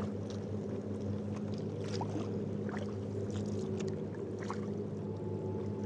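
Sea kayak paddling on calm water: scattered small drips and splashes from the paddle, over a steady low hum.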